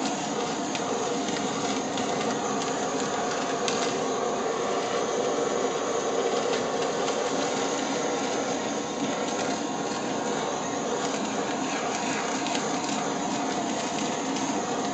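Butane culinary torch burning with a steady hiss as its flame sears a chicken breast.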